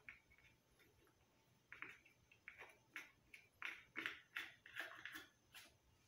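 Faint, irregular plastic clicks and scrapes as a cut-down plastic fan blade is handled and worked onto the motor shaft of a small desk fan, about a dozen of them starting about two seconds in.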